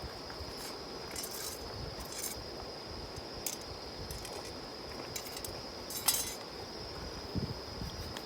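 Wood campfire burning with a soft low rush and scattered sharp crackles and pops, the loudest about six seconds in. A steady high insect trill runs behind it.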